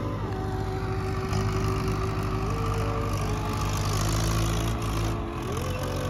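Tractor diesel engine running steadily while pulling a trolley, its low rumble growing a little stronger about a second in. Background music with long held, sliding notes plays over it.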